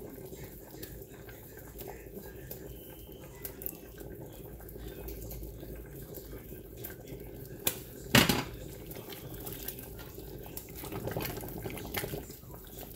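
Pot of chicken soup simmering steadily while pieces of croissant dough are dropped in by hand, with small soft clicks and one sharp knock about eight seconds in.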